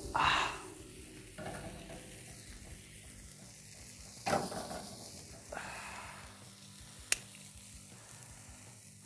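Tomahawk steak sizzling on a grill over hot coals. The sizzle swells louder just after the start and again about four seconds in, with a single sharp click near seven seconds.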